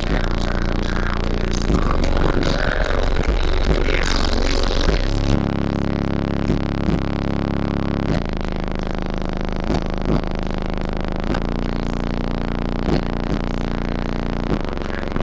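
Bass-heavy music played very loud through a competition car audio system, with deep sustained bass notes and a rattly, distorted top. About five seconds in the bass line changes and settles into steady notes with regular thumps.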